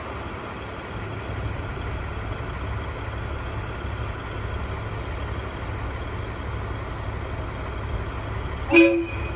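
Diesel engine of a JR KiHa 110 railcar running with a steady low rumble as the car is moved slowly up for coupling. Near the end comes one short horn toot.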